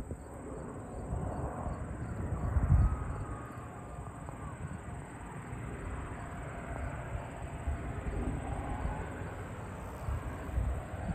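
Distant light aircraft engine droning as the plane flies low toward the runway, under gusts of wind rumbling on the microphone.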